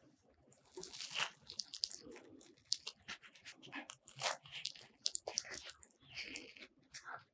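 Soft-baked cheese and corn bread roll squeezed and torn open by hand: a run of irregular crackles and rustles as the thin crust cracks and the crumb pulls apart.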